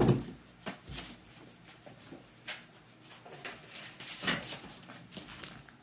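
Paper mailer and plastic sleeve crinkling and rustling in the hands, with a few short knocks and crackles as a bagged comic book is pulled out of the cut-open envelope; the loudest knock comes right at the start and another burst of crinkling about four seconds in.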